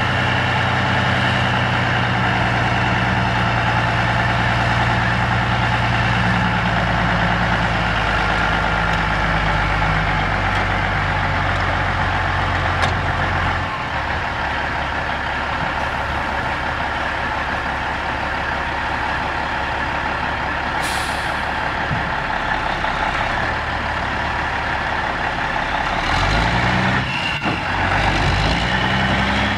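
Caterpillar 3406E six-cylinder diesel of a Kenworth W900 dump truck running at raised speed while its PTO-driven hoist lifts the dump bed. The engine note drops about halfway through as the bed reaches full height. A short air hiss follows, and near the end the engine revs up a few times.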